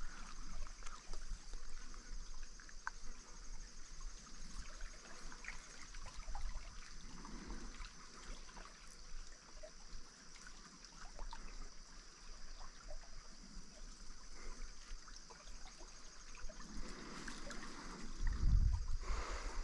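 Small creek's water trickling, with a steady high insect drone over it. Near the end there is a short low rumble.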